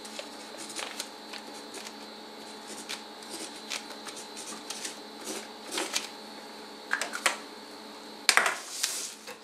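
Felt-tip marker writing a label on a plastic vacuum-sealer bag: scattered short scratchy strokes and light taps, with a longer, louder rustle of the plastic near the end.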